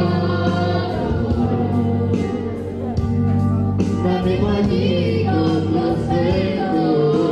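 A boy singing into a handheld microphone, his amplified voice carrying a wavering melody over live electronic keyboard accompaniment with steady sustained bass tones.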